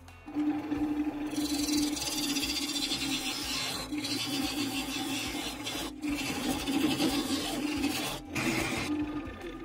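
Wood lathe running with a steady motor hum while a thin parting tool cuts a groove into the side of a spinning pale-wood bowl: a continuous hissing scrape of steel on wood. It starts just after the beginning, breaks off briefly three times as the tool lifts, and stops near the end.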